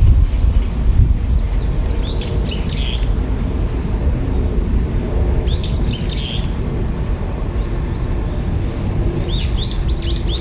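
A small songbird chirping in three short bursts of quick falling notes, about two, five and nine seconds in, over the steady low rumble of strong wind.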